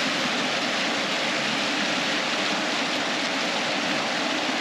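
Muddy river water rushing and churning over rocks close to the microphone: a steady rush with no let-up.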